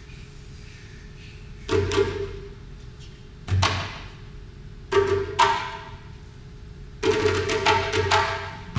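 Percussion-led music: a few separate drum strikes, about one every one and a half seconds, then a busier run of strikes near the end.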